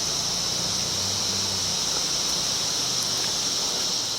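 Steady high-pitched chorus of insects droning without a break, over an even hiss of outdoor ambience.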